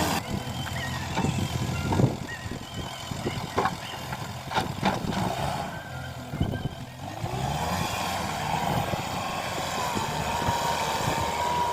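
JCB 3DX Eco backhoe loader's diesel engine running steadily under work, with scattered knocks and clanks. A steady whine joins in over the last few seconds.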